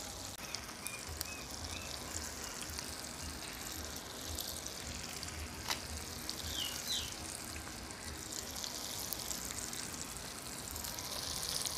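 Masala-coated snakehead fish pieces shallow-frying in oil on a flat tawa, a steady sizzle. A few faint short chirps and one sharp click about halfway through.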